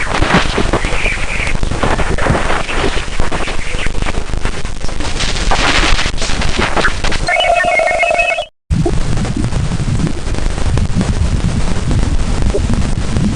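Crackling, hissing static dense with clicks and pops, with a short beeping tone pattern about seven seconds in, a brief dropout, then a lower rumbling hiss: radio and plasma-wave data from a Jupiter moon flyby rendered as sound.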